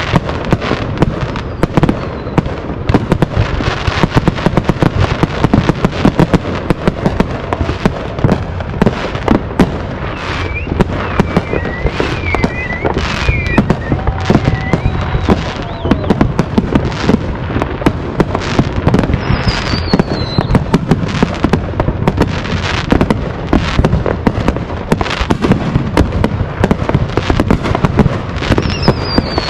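Many aerial fireworks going off at once: a dense, nonstop barrage of bangs, pops and crackles, some near and some farther off. A few short high whistles, some falling in pitch, sound through it.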